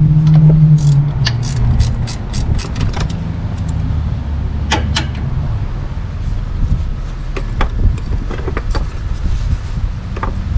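Hand tools working on engine bolts: a run of quick metallic clicks like a ratchet wrench from about one to three seconds in, then scattered clinks of metal on metal, over a steady low rumble.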